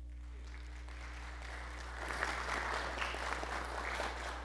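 Audience applauding, building up over the first two seconds and then holding until it starts to die away at the very end.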